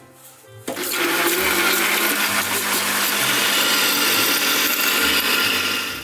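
Philips countertop blender switching on about a second in and running steadily, blending a thick smoothie, then stopping near the end.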